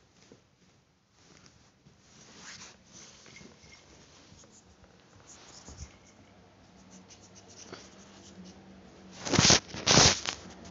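Scratching and rustling right on the phone's microphone as a kitten plays against it, with two loud rubbing noises about nine and a half and ten seconds in.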